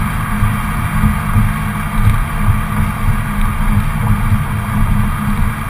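Dodge Dart GT's 2.4-litre MultiAir four-cylinder engine idling through its stock exhaust: a steady, low-pitched running sound with no revving.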